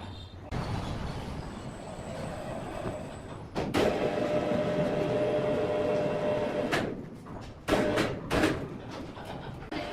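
Sawmill machinery running, with a steady whine from about a third of the way in that lasts some three seconds, and sharp clanks when it starts and stops and twice more near the end.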